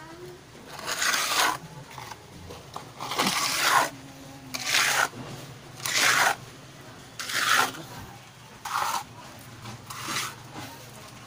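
Wooden hand float scraping across a freshly poured cement floor to smooth it: seven gritty strokes, about one every second and a half.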